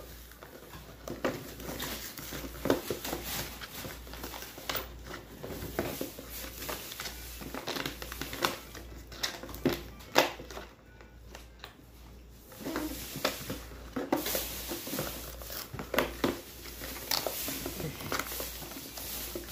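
Plastic and cardboard toy packaging crinkling and crackling as a child's hands pry at it, with many scattered sharp clicks and a quieter spell about halfway through; the package is hard to get open.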